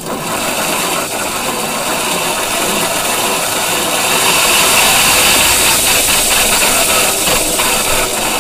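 1994 Club Car electric golf cart's drive motor and rear end running with a horrible, harsh mechanical racket that starts abruptly and dies away near the end. The noise comes from a failed input shaft bearing in the rear end, which had blown apart.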